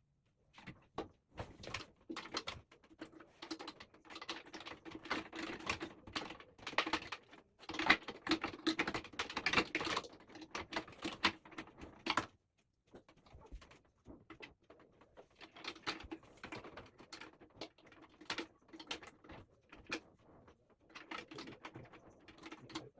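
Irregular clicking, tapping and scraping of hands working on a microwave oven's door mechanism, refitting a spring that had come loose.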